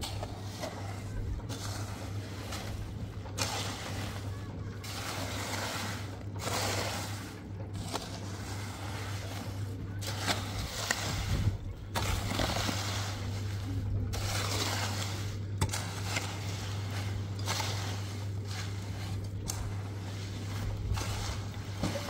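A metal hoe scraping and dragging wet concrete across a roof slab, in repeated strokes about every second or two. A steady low hum runs underneath.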